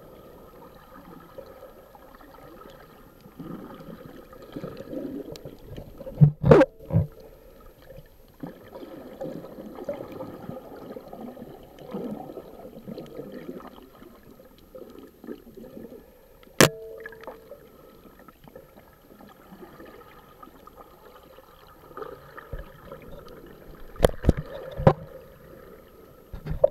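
Muffled underwater sloshing and gurgling of shallow sea water, heard through an action camera's waterproof housing. A few sharp knocks or clicks stand out: the loudest about six seconds in, one in the middle, and two near the end.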